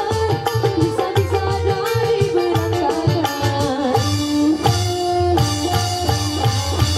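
Live dangdut band music: a hand drum keeps a quick, steady beat under a melody line that wavers in pitch.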